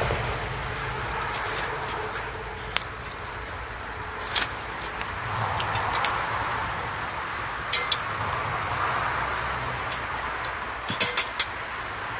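Small metal shovel clinking and scraping against a cast-iron Dutch oven lid as hot embers are heaped onto it for top heat, with a few sharp metallic chinks, the loudest a quick cluster of three near the end, over the steady hiss of a wood fire.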